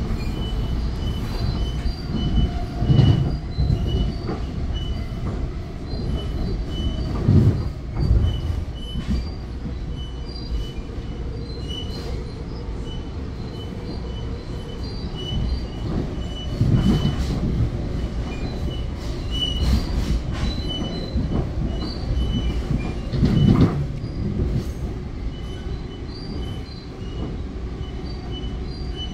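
Inside a Bombardier MultiLevel commuter coach running at speed: a steady rumble of wheels on rail, with a string of short high squeaks and a few heavy low jolts. The rider thinks the squeaking comes from the joint between the cab car and the car behind it.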